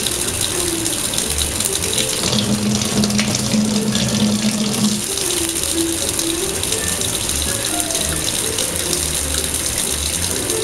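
Kitchen tap running a thin, steady stream of water into a stainless-steel sink, with music playing along with it.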